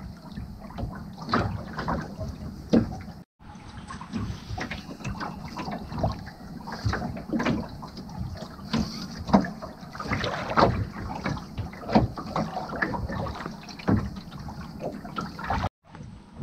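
Water slapping and lapping against the hull of a small Woods Bee sail-and-oar boat under way, with irregular knocks from the boat and its rigging.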